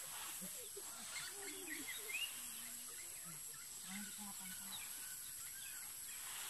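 Rural outdoor ambience: scattered short bird chirps over a steady high-pitched hiss, with a few faint low calls.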